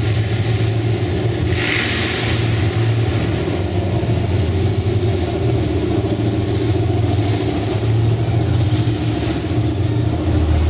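Muscle car engines rumbling as the cars creep past at low speed in a large indoor hall. A deep, steady exhaust rumble runs throughout, with a short hissing noise about two seconds in.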